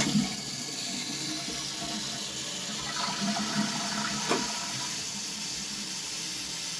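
1995 Mansfield Alto toilet flushing: water rushes steadily from the tank, with a brief knock about four seconds in.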